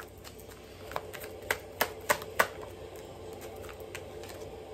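Tarot deck being shuffled by hand: a string of sharp card snaps over the first two and a half seconds, then fainter flicks.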